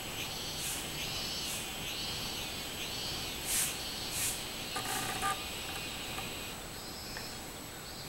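Minmin cicada (Hyalessa maculaticollis) singing its repeated 'meen-meen' phrase: high rising-and-falling notes about one a second, fading out about six and a half seconds in. Two brief hissy bursts come near the middle, and a short pitched call about five seconds in.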